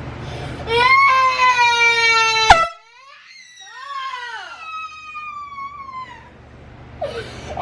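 Handheld canned air horn blasting once for about two seconds, a loud steady honk that cuts off abruptly with a click.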